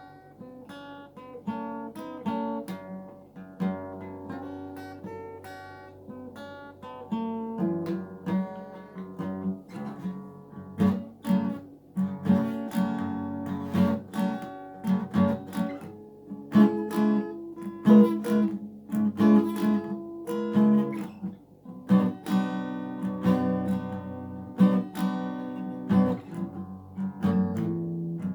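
Fender FA-125 laminate dreadnought acoustic guitar played solo. It starts softly with separate picked notes, then from about seven seconds in plays louder, fuller chords.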